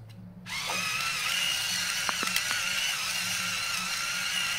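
A small electric motor whirring steadily for about five seconds, starting abruptly about half a second in, with a few faint clicks over it.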